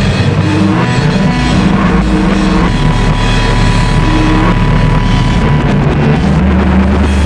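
Harsh noise industrial music: a loud, unbroken wall of distorted noise over blocky low drones that shift every second or so, with a steady high tone coming in about a third of the way through.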